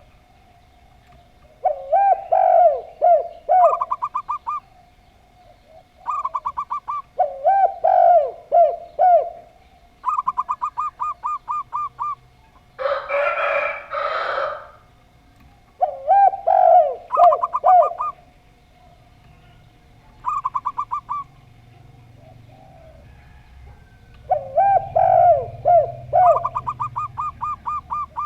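Doves cooing: zebra dove (perkutut) and spotted dove (tekukur) calls. They come in repeated phrases every few seconds, each a few low, hooked coos followed by a quick run of short, higher notes. A harsh noisy burst comes about 13 seconds in, and a faint steady tone runs underneath.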